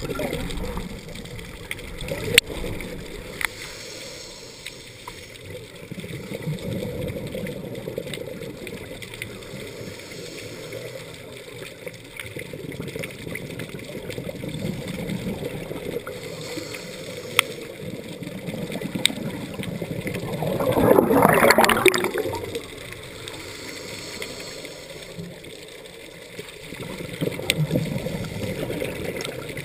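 Scuba diver breathing through a regulator underwater: slow cycles of inhaled hiss and gurgling exhaled bubbles, with one louder rush of bubbles about two-thirds of the way through.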